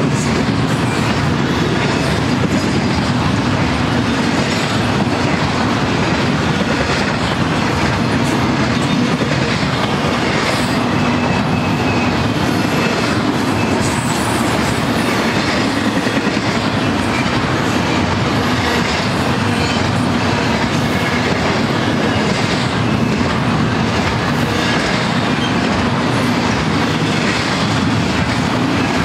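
Double-stack intermodal freight cars rolling past: a steady rumble of steel wheels on rail, with recurring clicks running through it.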